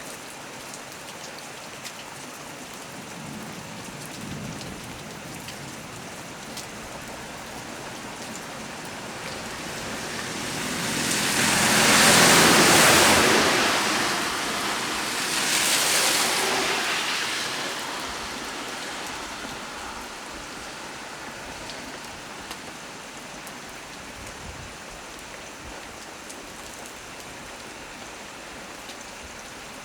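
Steady heavy rain hissing on leaves and surfaces. A little under ten seconds in, a louder hiss swells up, peaks twice and dies away over about ten seconds.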